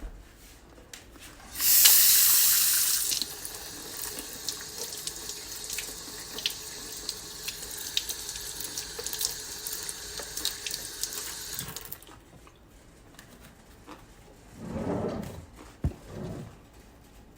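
Water running, like a tap into a sink: a loud gush starts about two seconds in, eases to a steady flow with small splashes and clicks, and stops about twelve seconds in.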